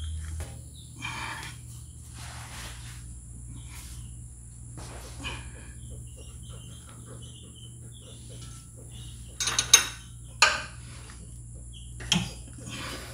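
Metal hand tool clicking and scraping on the mower's underside while the nuts on the belt retainer bar are loosened, with a few sharp metal clanks about ten seconds in. A steady low hum and a faint high whine run underneath.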